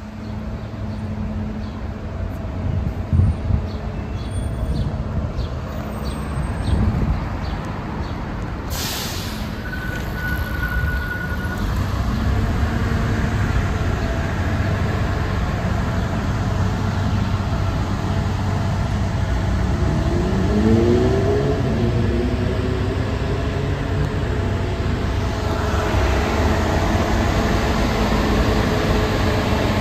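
Street traffic led by a bus engine running steadily, with a short hiss of air about nine seconds in and a brief high squeal just after. Around twenty seconds in, the engine pitch rises as a vehicle pulls away.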